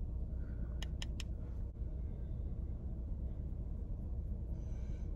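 Steady low hum of a car's interior, with three quick light clicks about a second in from a makeup brush tapped against a plastic eyeshadow compact.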